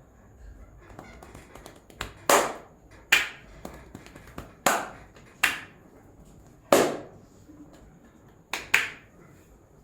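Sharp cracking slaps of a barber's hands striking the head during an Indian skin-cracking head massage. There are about seven, spaced irregularly roughly a second apart, two of them close together near the end.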